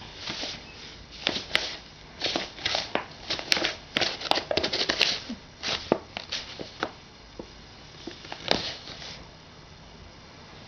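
Brown paper bag crinkling and rustling in irregular bursts as a Siamese cat wriggles inside it, busiest in the middle and settling for the last couple of seconds.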